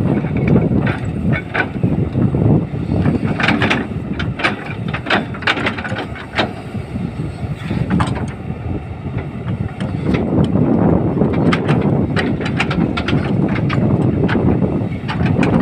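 Kobelco SK200 hydraulic excavator at work levelling backfilled soil: its diesel engine running under load, with frequent metal clanks and rattles from the machine.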